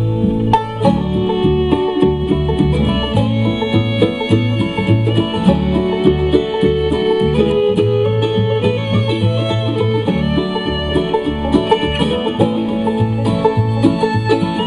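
Instrumental bluegrass-style country music: banjo picking with guitar and fiddle, no singing.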